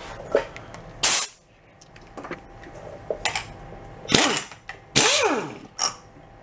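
Pneumatic impact wrench hammering in several short bursts on a small engine's flywheel nut, the motor winding down in pitch each time the trigger is let go. The nut does not come loose.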